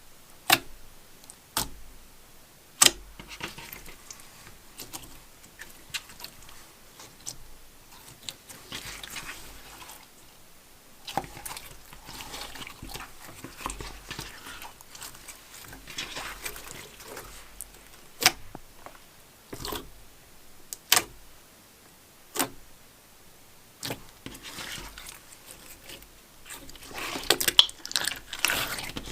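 Slime being squished and worked by hand: wet crackly squelching broken by sharp pops and clicks every few seconds, the squelching thickest near the end.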